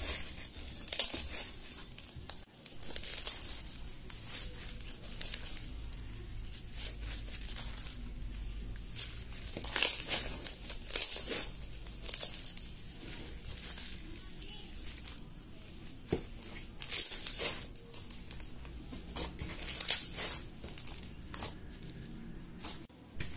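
Crunchy slime packed with white foam beads being squeezed and kneaded by hand, giving an uneven run of crackles and squelches.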